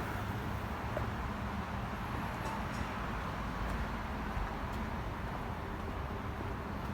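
Steady outdoor background noise: a low, even hum under a soft hiss, with no distinct events.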